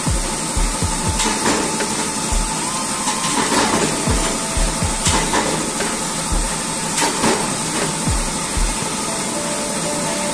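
A finger tapping the membrane buttons of a screw air compressor's control panel: about a dozen short, dull thumps at uneven intervals, over a steady machine hiss.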